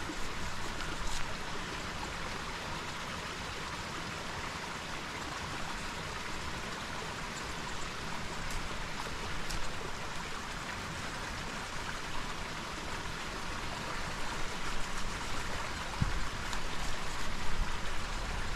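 Woodland brook running steadily, with a few faint clicks and knocks.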